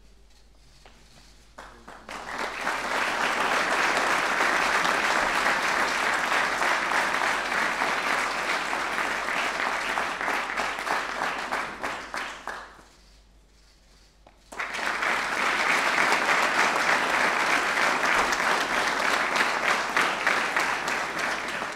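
Audience applauding. It starts about two seconds in and dies away past the middle, then a second round of applause breaks out suddenly a couple of seconds later and runs on.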